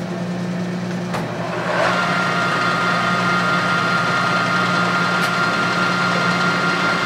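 Clausing Colchester 13 x 40 inch lathe running under power at 770 RPM with a steady hum. A click comes about a second in. About two seconds in the sound grows louder and a steady whine joins it as the carriage power feed is engaged.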